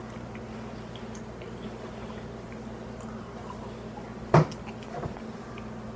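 A steady low hum, with one short, sharp sound about four seconds in as a man drinks from a small glass of water.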